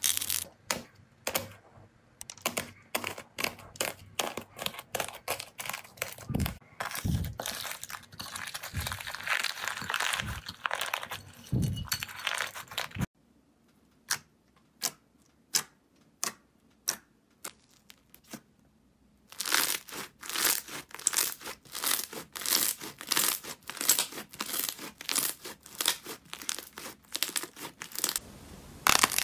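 Slime being squeezed and kneaded by hand, crackling and popping with many sharp clicks. The crackling thins out to scattered pops for a few seconds in the middle, then turns dense again.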